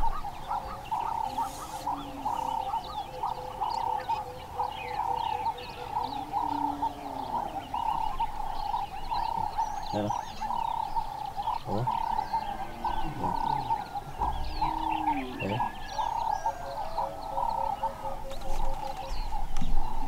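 Wild animal chorus: a steady, fast-pulsing call, with birds chirping and a low rising-and-falling cooing call heard a few times.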